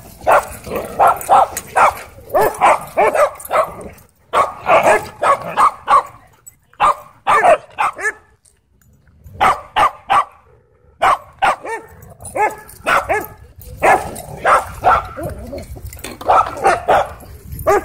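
Dogs barking and yipping at play, in quick runs of several barks with short pauses between the runs.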